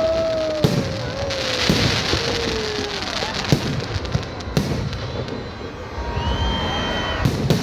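Fireworks and firecrackers going off: sharp bangs scattered through, a crackling hiss about two seconds in, and drawn-out whistling tones, one slowly falling in pitch and a higher one near the end.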